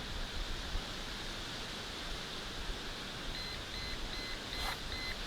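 Digital multimeter beeping five short times in an even row, starting a little past halfway: the warning that its auto power-off is about to shut it down. A steady hiss lies underneath.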